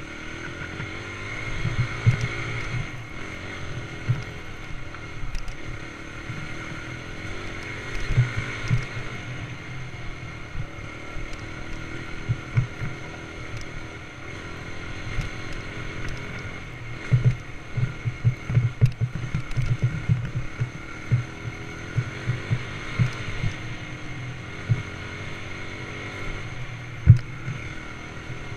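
Dirt bike engine running steadily while riding a bumpy trail, with wind buffeting and low thumps on the microphone, a cluster of them about two-thirds through and one sharp jolt near the end.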